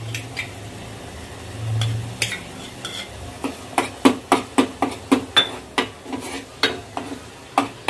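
A spatula stirring onion and chilli paste in a small nonstick saucepan, scraping and knocking against the pan. The knocks become a steady rhythm of about three a second from about halfway in, after a few scattered taps of a spoon adding paste.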